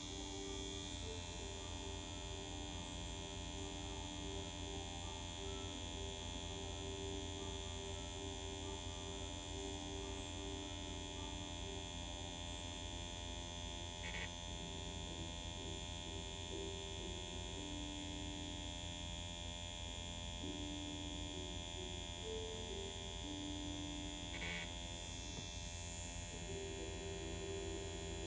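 Permanent-makeup machine (PMU pen) buzzing steadily as it works.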